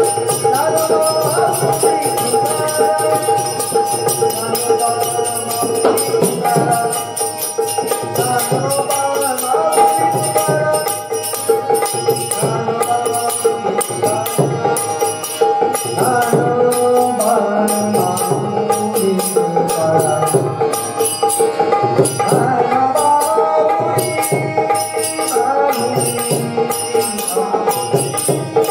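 Marathi gaulan devotional folk song: a melody that bends and glides over a steady drone, with small jingling cymbals keeping a fast, even beat.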